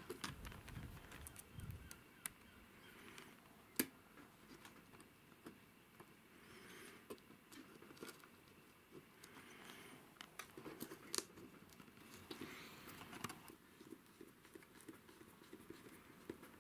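Faint, scattered small clicks and taps from handling tiny track screws and a screwdriver against plastic model railway track, with one sharper click about four seconds in and another near the end.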